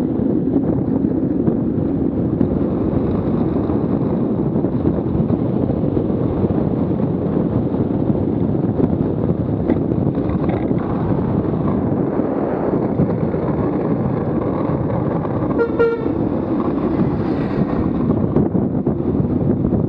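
Steady rush of wind and the many wheels of a Buggy Rollin wheeled body suit rolling fast down an asphalt mountain road. About sixteen seconds in comes one short car-horn honk.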